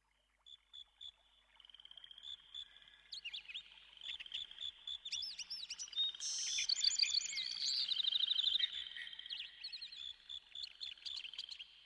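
Several birds chirping and calling over each other with quick rising and falling whistled notes, over a thin, steady high-pitched background tone. The chorus grows busier and louder a few seconds in.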